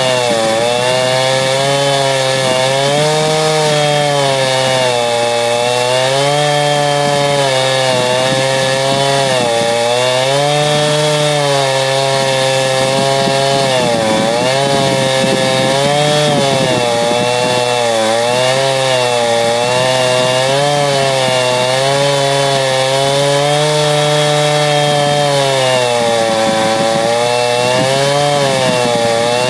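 Two-stroke chainsaw running at full throttle, ripping lengthwise through a log. The engine's pitch sags and recovers every few seconds as the chain bogs under load, with a deep dip about fourteen seconds in.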